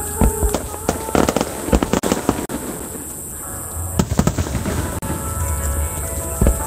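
Fireworks display: aerial shells bursting in a rapid volley of bangs, thinning out about three seconds in and picking up again at about four seconds, with music playing underneath.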